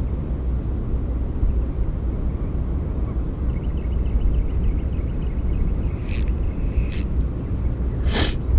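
Steady wind noise on the microphone, with a Ryobi Smurf 1000 spinning reel being cranked. A faint fast ticking from the reel comes in about three and a half seconds in, and a few sharp clicks follow near the end.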